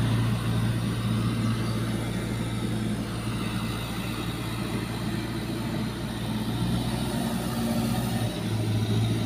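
Komatsu bulldozer's diesel engine running steadily with a low, even drone, briefly dipping about eight seconds in.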